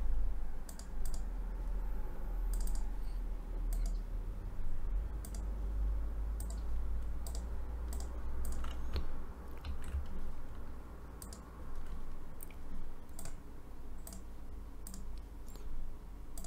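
Scattered clicks of a computer mouse and keyboard, coming irregularly a second or so apart, over a low steady hum.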